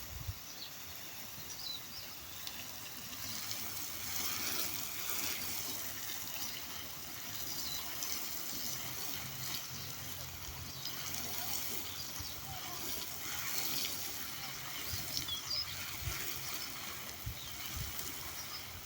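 Water trickling steadily, with a few faint high chirps and a low hum coming in about halfway through.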